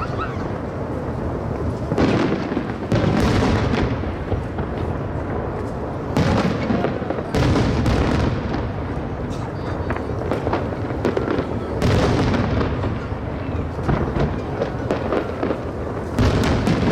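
Aerial fireworks bursting in quick succession, a sudden loud bang every second or two, with rumbling echoes in between.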